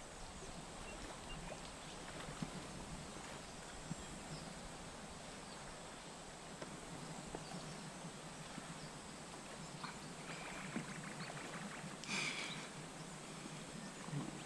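Faint, quiet outdoor ambience with scattered small clicks. About ten seconds in there is a rapid, evenly spaced trill, and a brief sharper call about twelve seconds in.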